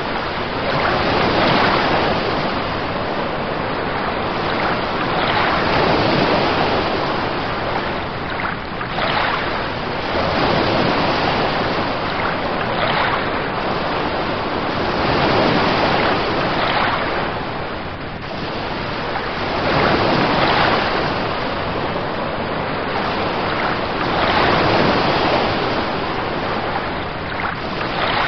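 Ocean surf: a continuous rush of breaking waves that swells and eases about every four seconds.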